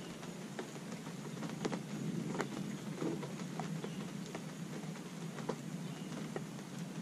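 Rain falling steadily, with irregular individual drops tapping and dripping close by.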